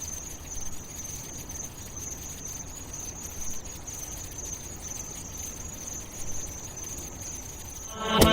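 A steady high-pitched trill over a faint low hiss, like night insects. Music with a beat comes in near the end.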